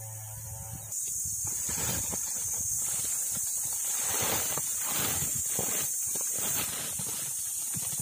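Mangoes tumbling out of a woven plastic sack onto leaf-littered ground: a run of knocks and soft thuds over a steady high hiss that starts about a second in.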